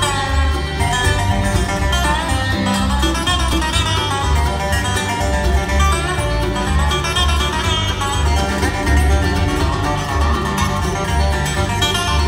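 Bluegrass band playing an instrumental passage: a Dobro resonator guitar played flat with a slide, its notes gliding up and down, over strummed acoustic guitar and a steady bass beat.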